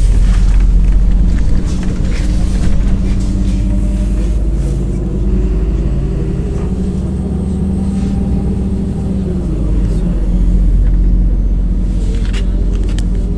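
Interior noise of a MAZ-203 city bus on the move: the engine and drivetrain give a steady low drone. The engine note climbs in the middle and falls back about two-thirds of the way through.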